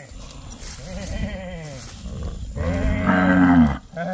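Young calf bawling: two calls, the second, from about two and a half seconds in, louder.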